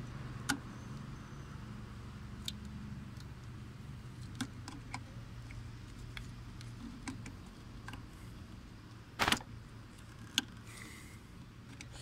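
Plastic clicks and rattles of the engine-computer (ECU) wiring connectors being handled: a few sharp clicks spread out, with a louder short rattle about nine seconds in. A steady low hum runs underneath.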